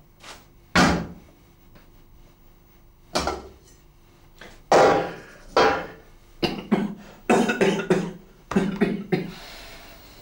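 Sharp knocks and clunks of an enamel pot and its lid being handled on a wooden board: single knocks a second or two apart, then quick clusters of knocks in the second half.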